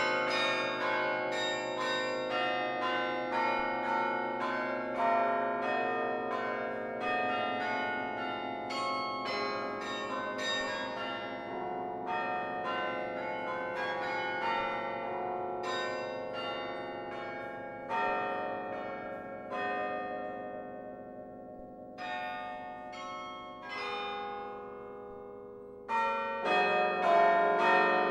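The Laura Spelman Rockefeller Memorial Carillon's bells are played from the hand keyboard, struck in quick succession so that many bells ring over one another. Near the end the playing thins to a few separate strikes with long ringing decays, then a loud burst of many bells struck together comes in.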